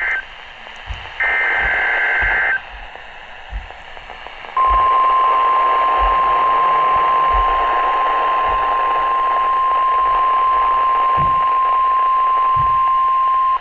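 NOAA Weather Radio emergency alert: short bursts of the screechy digital alert-header data tones, then, about four and a half seconds in, the long steady single-pitch warning alarm tone, over radio hiss. The alarm tone signals that a watch or warning message is about to be broadcast, here a tornado watch.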